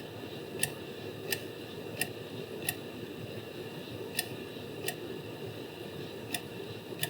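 Sharp, evenly spaced ticks, about three every two seconds with two short gaps, over a steady low background hiss.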